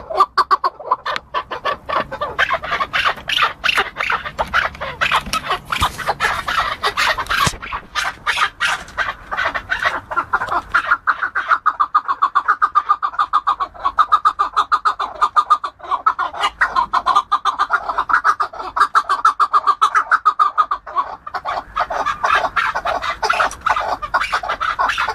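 Chukar partridge calling: a long, unbroken run of quick, repeated clucking notes, several a second.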